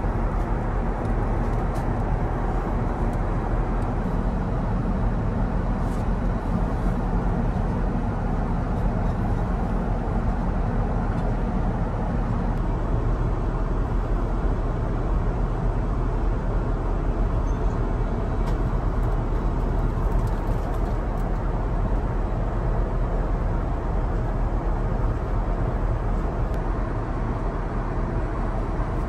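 Steady in-flight cabin noise inside an Airbus A350-1000 airliner: an even rush of air and engine noise with a low hum underneath.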